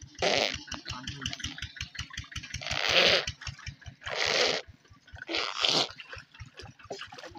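Muddy pond water splashing and sloshing in four loud washes as a mosquito net is hauled through the shallows by wading people, over a steady, rapid low pulsing in the background.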